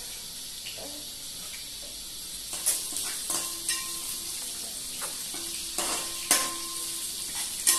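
Whole spices and green chillies sizzling in hot oil in an aluminium pot, a steady high hiss. From about two and a half seconds in, a metal ladle stirs them, knocking and scraping against the pot several times with a short ring.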